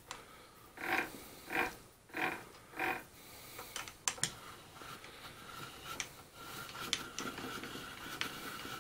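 Mini lathe carriage being wound along the bed by its handwheel while a dial indicator runs along a test bar. There are four soft, evenly spaced whirs from the handwheel and rack gearing in the first few seconds, then a few light clicks.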